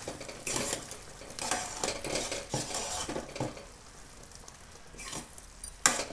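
Steel ladle stirring thick, syrupy pumpkin halwa in a metal kadai, scraping and knocking against the pan in several separate strokes. The sharpest clack comes near the end. The halwa is almost done, cooked down in jaggery syrup.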